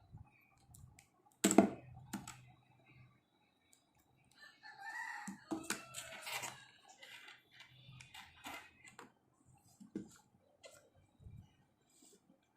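Scattered clicks and knocks from an Ant Esports MK1200 mini mechanical keyboard with red switches being pressed and handled; the loudest is a sharp knock about one and a half seconds in. A rooster crows in the background around the middle.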